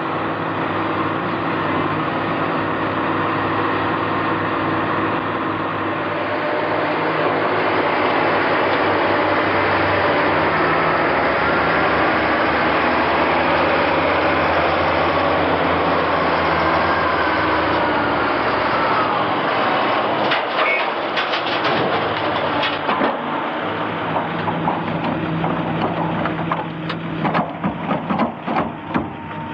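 Heavy diesel construction machinery running steadily, with bursts of sharp metallic clanks and knocks about two-thirds of the way through and again near the end.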